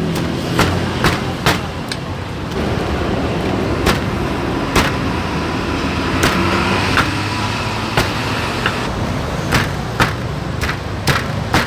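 Steady rumble of road traffic, with sharp clacks or knocks every half second to second and a half standing out above it.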